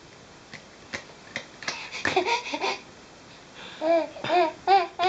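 Baby giggling in a run of about five short pitched bursts in the second half, after a brief babbling sound about two seconds in. A few light clicks come before it.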